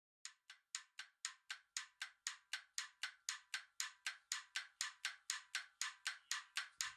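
Quiet, rapid, even ticking at about four ticks a second, a clock-like tick opening a song, growing a little louder over the first second.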